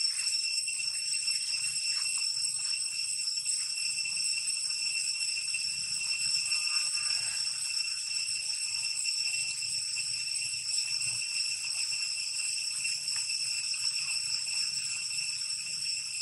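Steady, shrill insect chorus: a ringing drone at a few high pitches that holds without a break.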